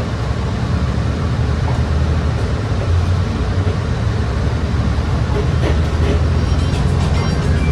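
City bus running, heard from inside the passenger cabin: a steady low engine drone with road noise, and a few faint high squeaks in the second half.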